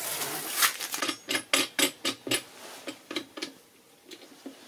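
Plexiglas sheet and steel flat-bar frame being handled and fitted together: a light brushing at first, then a quick run of about ten small knocks and clicks that die away.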